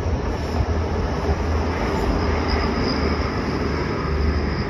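Grand Central diesel passenger train running over the level crossing: a steady rumble with a faint high whine through the middle of the pass, and wind on the microphone.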